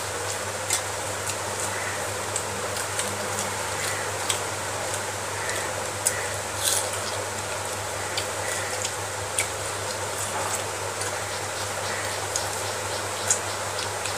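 A person eating dal-mixed rice by hand: irregular short, wet clicks of chewing and lip smacking over a steady hiss and low hum.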